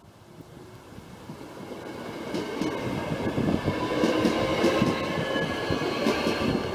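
Matangi electric multiple unit running along the platform and passing close by, its wheel and running noise growing steadily louder as it approaches, with a faint whine over the noise.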